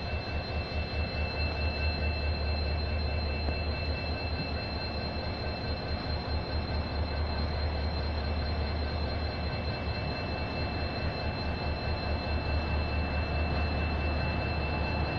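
WAP-4 electric locomotive hauling a passenger train as it pulls slowly out. A steady low hum runs under two steady high-pitched whines, with the rumble of the wheels on the track.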